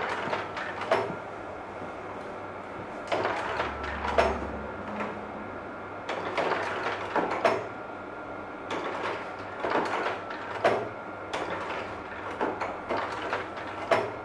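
Kodak Carousel slide projectors running: a steady fan hum with clusters of clacks and clunks every few seconds as the slide-change mechanism drops and ejects slides and advances the tray.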